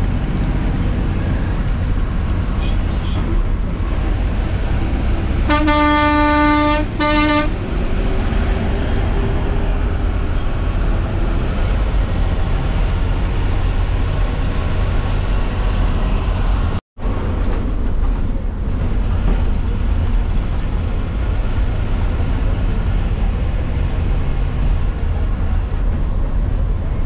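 Steady low rumble of a diesel bus engine and road noise, heard from inside the bus cabin. About five seconds in, a horn sounds in two blasts, a longer one and then a short one. The sound cuts out for an instant about 17 seconds in.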